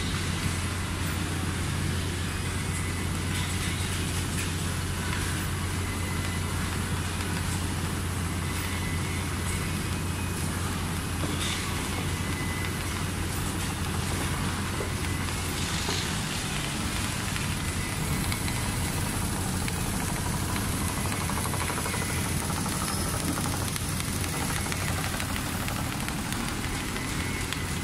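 Large-area rotating-head CNC sewing machine running as it stitches upholstery fabric stretched on its frame: a steady mechanical hum with a low drone.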